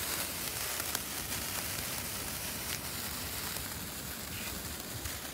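Hand-held firework fizzing with a faint, steady hiss as it sprays sparks, with a few small ticks.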